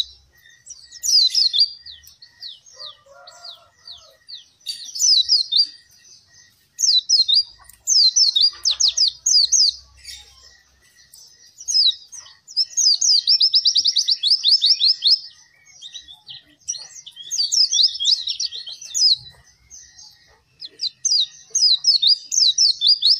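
White-eye (pleci) singing vigorously in repeated bursts of quick, high, falling notes with short pauses between phrases, including a long fast trill about thirteen seconds in.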